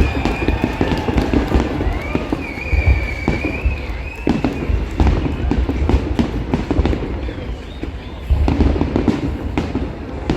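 Fireworks display going off: a dense run of bangs and crackling bursts over a continuous low rumble.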